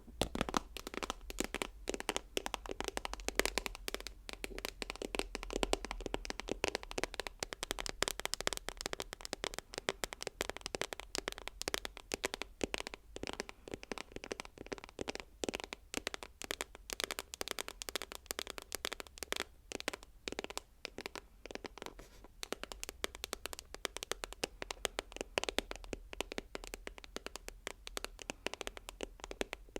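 ASMR tapping: rapid, continuous light taps, many to the second, with no pauses.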